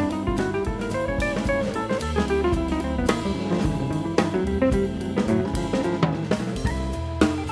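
Instrumental background music with a drum kit and a melody line.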